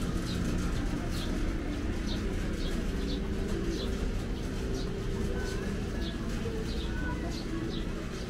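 A small bird chirping over and over in short, high chirps, about two a second, over a steady low background rumble.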